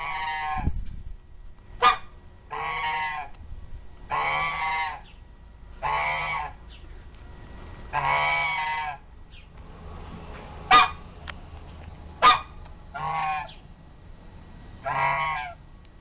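A goose honking repeatedly: about seven drawn-out honks of under a second each, with three short, sharp squawks in between.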